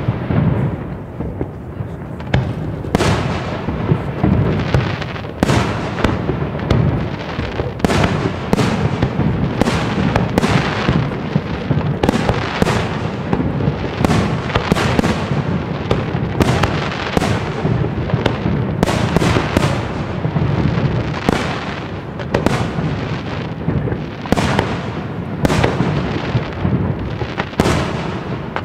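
Professional class F4 aerial fireworks display: shells bursting in quick succession, a bang about once or twice a second, with no quiet between them.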